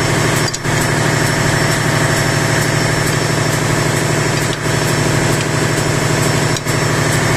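Steady drone of engine-room machinery: an engine running at constant speed, not the main engine itself, whose crankcase stands open. The sound briefly dips three times.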